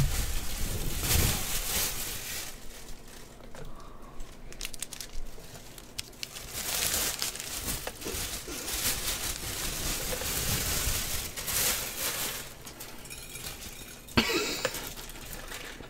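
Thin plastic bag crinkling and rustling in fits as it is pulled open and handled, with a short sharp knock near the end.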